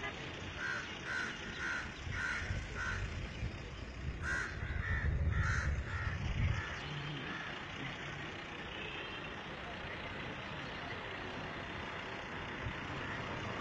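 A bird calling in two runs of short, evenly spaced calls, about two a second. A low rumble, like a vehicle going by, swells in the middle and fades again.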